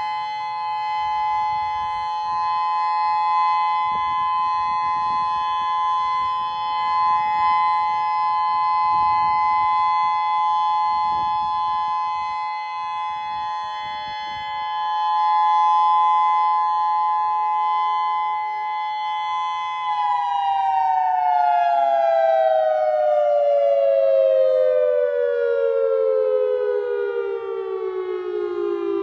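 Federal Signal Modulator 6048 electronic outdoor warning siren sounding a loud, steady chord of several tones. About two-thirds of the way through, the whole chord starts falling steadily in pitch as the siren winds down at the end of its test signal.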